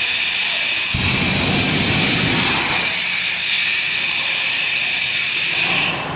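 Portable dry-powder fire extinguisher discharging: a loud, steady hiss that cuts off sharply near the end.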